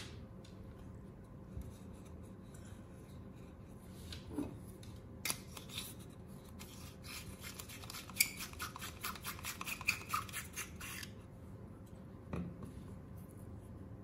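Hands handling the plastic housing of an opened LED light bulb: scattered small clicks and scrapes, with a rapid run of them for about four seconds in the middle and a single knock near the end.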